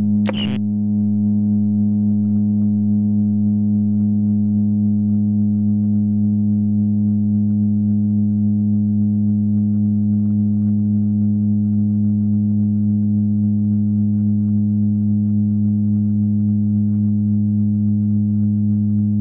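A steady low electronic drone, a deep hum with a stack of overtones, held without change throughout. Just after the start a brief high swish cuts through it.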